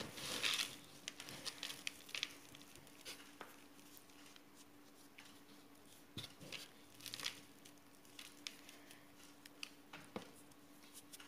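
Hands rolling a sticky dough ball through coarsely ground peanuts in a plastic bowl: faint, scattered rustling and crunching of the peanut pieces, with a faint steady hum beneath.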